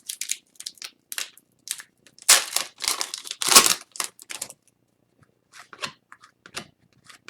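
Plastic wrapper of an Upper Deck Series 1 hockey card pack being torn and crinkled in a string of short rustling bursts, loudest about two to four seconds in, with softer rustles of cards being handled later.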